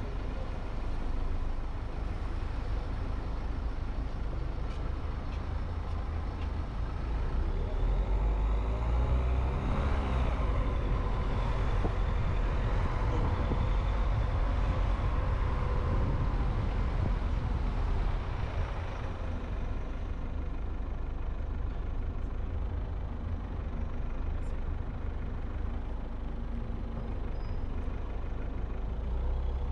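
Road vehicle driving through city streets: a steady low rumble of engine and tyre noise, louder from about eight to eighteen seconds in, where an engine's pitch rises and falls.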